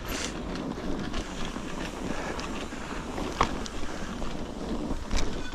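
Mountain bike riding through deep snow: a steady rush of tyres in snow and wind on the microphone, with a couple of sharp clicks from the bike, one about three and a half seconds in.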